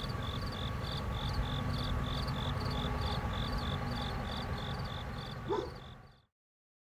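Steady insect chirping, short high chirps at about three a second, over a low background rumble. A brief louder sound comes shortly before the end, and then everything fades and stops about six seconds in.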